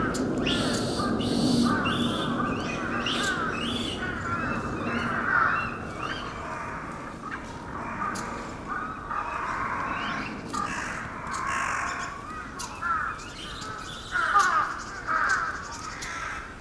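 Many overlapping harsh animal calls, repeating throughout, with a steady background rush underneath.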